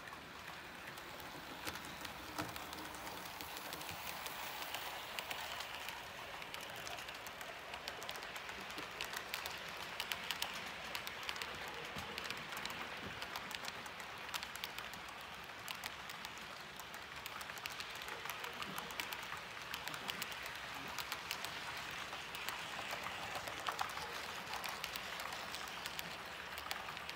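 Model railroad freight train rolling past close by on its track: a steady rattling rush of wheels on rail, dotted with many small clicks, growing and easing as the cars go by.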